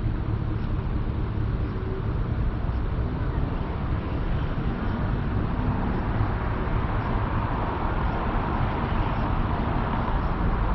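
A car running, heard from inside the cabin: a steady low engine and road rumble, with a hiss that grows somewhat from about four seconds in.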